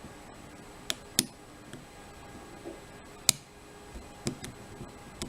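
Lock pick and tension wrench working the pins of a Union padlock: a few sharp, separate metallic clicks spaced irregularly, two of them louder than the rest.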